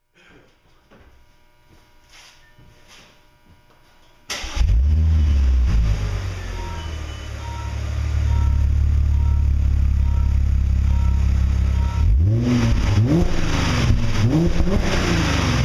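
Supercharged 3.0 TFSI V6 of an Audi A6, fitted with a custom 2.5-inch exhaust with X-pipe and Magnaflow muffler, heard at the tailpipe. After a few faint clicks it starts about four seconds in with a short rev flare and settles to a steady idle. Near the end it is revved in several quick blips.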